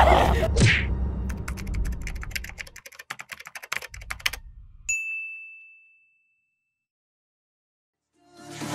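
Typing sound effect: a rapid run of key clicks for about four seconds, then a single bell ding that rings on and fades.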